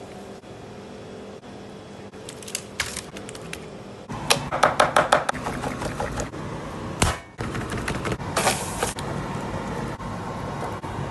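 A few light clicks. Then, about four seconds in, the loud, dense crackle of hot oil as raw potato slices go into a frying pot, settling into a steadier frying sizzle.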